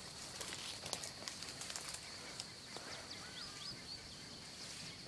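Quiet outdoor ambience: a steady high-pitched hum, a few faint bird chirps about three seconds in, and scattered light clicks and rustles.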